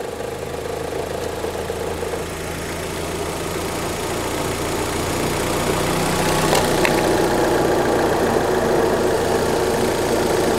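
Opel Zafira engine idling with the air-conditioning compressor running, a steady hum that grows gradually louder. The refrigerant has just been topped up to the specified 450 g, and the compressor's vibration noise is gone.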